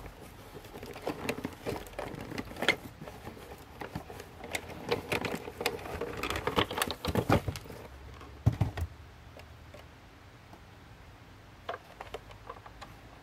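Cardboard toy box and its plastic packaging being handled and opened: a busy run of scraping, rustling and clicks, with a heavier thump about eight and a half seconds in, then a few light clicks near the end.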